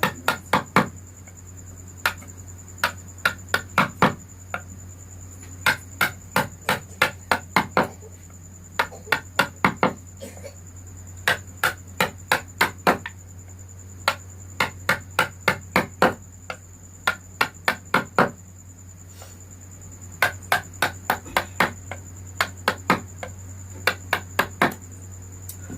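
Mallet tapping a carving chisel into wood in quick runs of sharp strikes, about four a second, with short pauses between runs.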